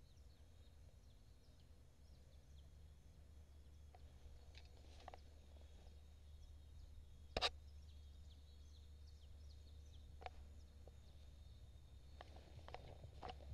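Quiet outdoor ambience: a low steady rumble with faint high chirps, a few soft clicks, and one sharp click about seven seconds in.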